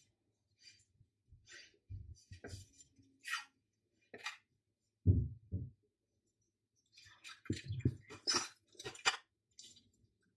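Tarot cards being handled and flipped through: short sliding scrapes and snaps of card stock, in a cluster of quick snaps near the end. Two dull thumps about five seconds in are the loudest sounds.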